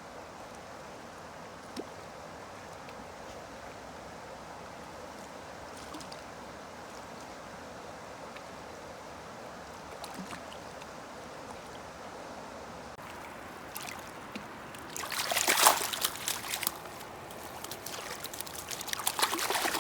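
River water flowing, a steady rushing hiss, with louder bursts of noise about fifteen seconds in and again near the end.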